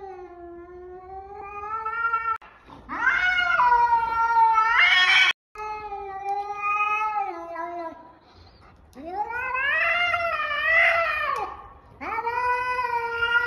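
Cat giving a series of long, drawn-out meows, about five in a row, each bending up and down in pitch. The loudest, about three to five seconds in, climbs and breaks off sharply.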